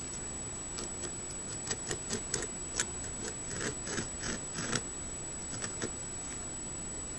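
Beaver gnawing at a tree trunk: an irregular run of short crunching scrapes as its incisors chip the wood, bunched in the middle, over a steady hiss.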